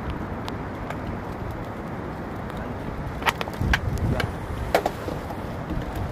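Wind rumbling on the phone's microphone over the sea, with a few sharp clicks and knocks, the loudest about three to five seconds in.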